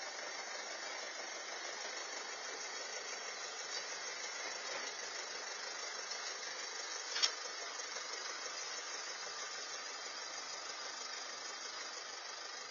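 Mercedes GLC coupe running and being driven backwards off the driveway, heard only faintly under a steady hiss. There is one sharp click about seven seconds in.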